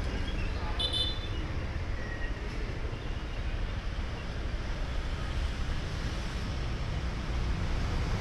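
Steady street traffic noise, a low continuous rumble of passing vehicles, with a brief high-pitched tone about a second in.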